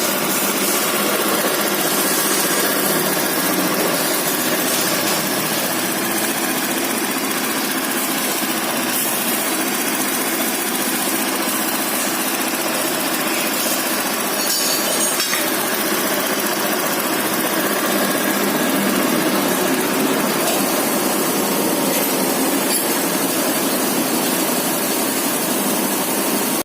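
Honda Vario scooter's single-cylinder engine running steadily at idle, a constant, even engine noise with no change in speed.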